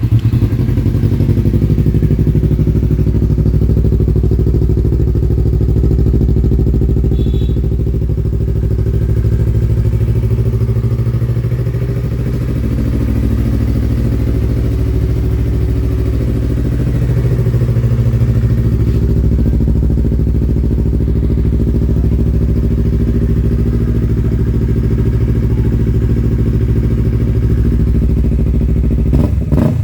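Yamaha MT-03's 321 cc parallel-twin engine running steadily at idle through a Yoshimura R77 slip-on exhaust.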